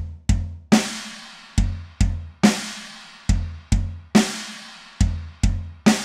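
Drum kit playing a simple pattern: two bass drum kicks followed by a cymbal crash that rings on, repeated four times.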